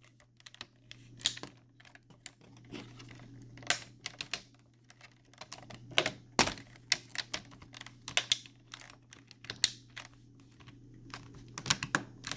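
Plastic laptop screen bezel being pried loose by hand: a run of irregular sharp clicks and snaps as its clips release, with fingers rubbing and tapping on the plastic.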